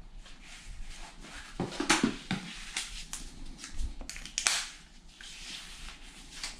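Irregular rustling and light knocks of things being handled, strongest about two seconds in and again briefly about four and a half seconds in.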